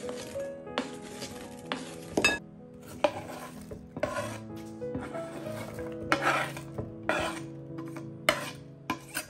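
A utensil stirring and scraping in a bowl, in repeated strokes roughly once a second with occasional clinks against the bowl.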